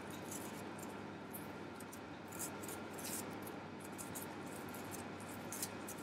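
Hands working a small piece of gum paste, making faint scattered rustles and light ticks over a steady low room hum.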